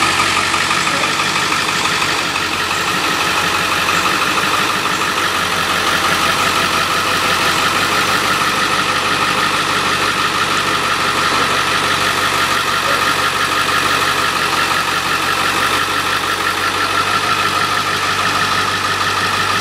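Ford F-350 diesel pickup engine running steadily at idle.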